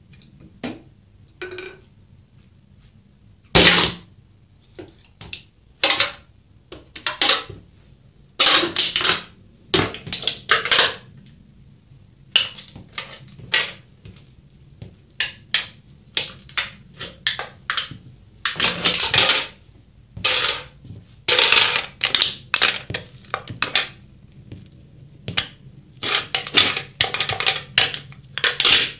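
Aluminium Red Bull energy drink can crushed under the sole of a white Nike Air Force 1 sneaker on a tile floor: one loud crunch about three and a half seconds in as the can gives way, then many irregular metallic crackles and crunches as the sole keeps stepping on and grinding the crumpled can.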